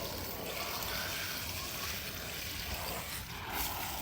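Water running from a garden hose onto the ground, a steady trickle and splash.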